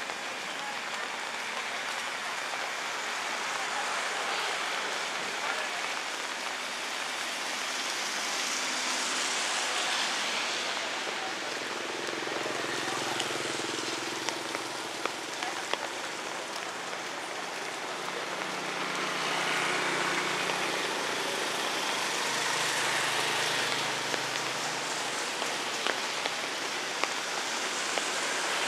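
Light rain pattering steadily on wet pavement and stall canopies, with a few sharp drips. Passing vehicles add a low engine hum twice, about twelve seconds in and again around twenty seconds.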